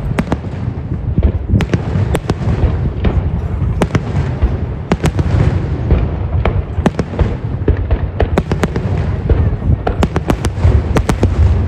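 Fireworks display: a rapid, irregular stream of sharp bangs and crackles over a continuous low rumble of booms.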